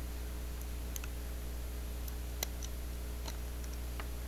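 A few sharp, isolated clicks, about a second apart, of steel tweezers and small M3 screws touching the metal floor of an HO-scale model railcar as a speaker is screwed in. A steady low hum runs underneath.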